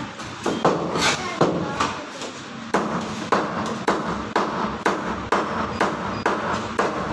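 Cleaver chopping through rohu fish on a wooden chopping board: a run of sharp chops, about two a second, as the fish is cut into pieces.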